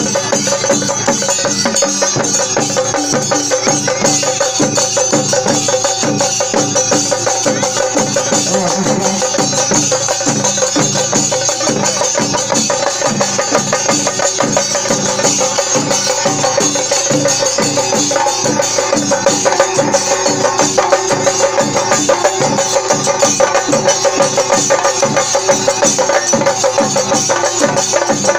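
A group of rope-laced barrel drums beaten with sticks, playing a fast, dense, unbroken rhythm together.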